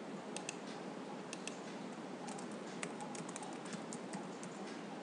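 Typing on a computer keyboard: a few scattered key clicks in the first couple of seconds, then a quick run of keystrokes in the middle, over a steady background hiss.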